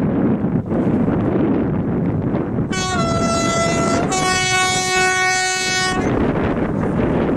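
Diesel railcar sounding its two-tone horn: a higher note for about a second and a half, then a lower, longer note, over steady wind on the microphone.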